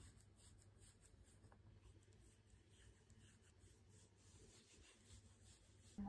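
Near silence with faint rubbing: a hand stroking a dog's fur in a belly rub, in short repeated strokes.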